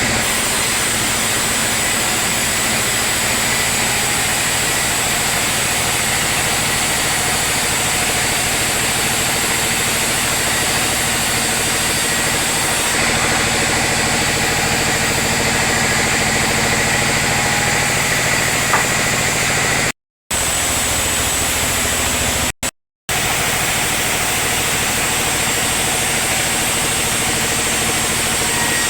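Sawmill machinery running steadily: a constant mechanical hum with a high steady whine over it. The sound drops out completely twice for a moment, about two-thirds of the way through.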